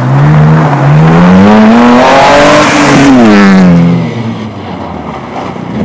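Race car engine accelerating hard, its note climbing steadily as it closes in, then dropping sharply as it passes about three seconds in and fading away.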